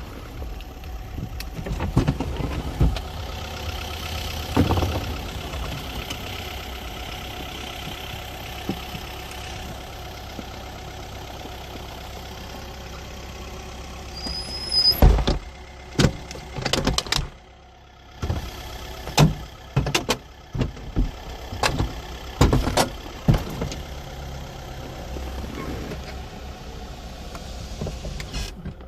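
Mercedes SL500 R129's repaired convertible-roof system cycling: a steady machine hum for about the first half, then a series of sharp clunks and knocks from the middle on as the roof mechanism moves and latches.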